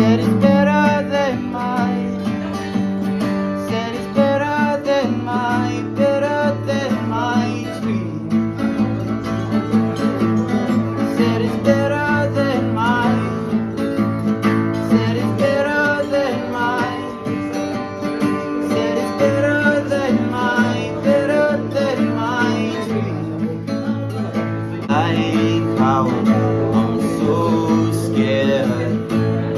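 Background music led by acoustic guitar, with a sung melody.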